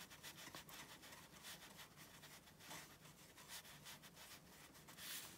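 Faint scratchy rubbing of a watercolour brush dabbing and working paint on rough Khadi cotton rag paper, in many short strokes, with a slightly louder stroke near the end.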